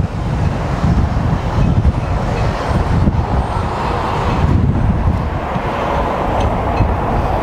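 Outdoor background noise: wind buffeting the microphone over the rumble of road traffic, with a vehicle's sound swelling about four seconds in.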